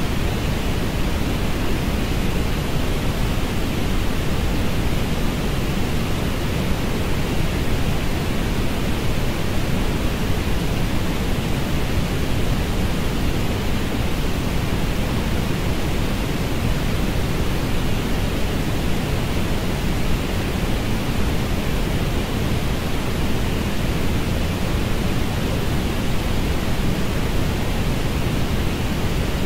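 Steady synthetic stereo orange noise: an even, unbroken hiss, fullest in the low end and thinner toward the top, with no changes.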